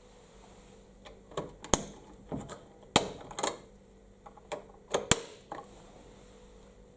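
A run of sharp mechanical clicks and clacks, about ten over some four seconds, three of them louder than the rest, from hands working a fire alarm control panel.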